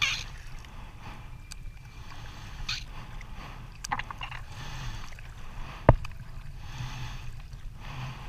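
Kayak paddle blades dipping and splashing in the sea over a steady low rumble of wind and water. There is a short splash right at the start and more around three and four seconds in. One sharp low thump about six seconds in is the loudest sound.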